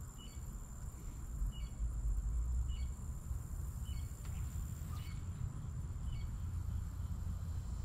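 Outdoor pond-side ambience: a short, high chirp repeats about once a second over a low rumble and a steady thin, high whine.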